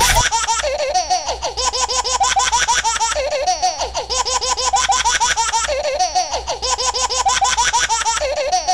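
High-pitched giggling laughter, like a baby's, in quick repeated bursts, with the same run of giggles coming round again every few seconds like a looped laughter track.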